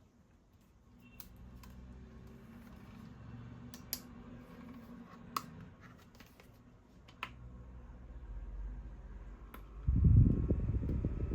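Mini desktop fan being handled: a few sharp clicks, then about ten seconds in the fan's airflow blows onto the microphone as a loud low rumble.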